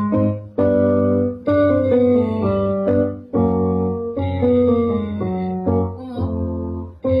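Piano playing a vocal-exercise scale pattern for a range test. A chord is struck about every second or two, and each is followed by a short run of notes stepping down in pitch.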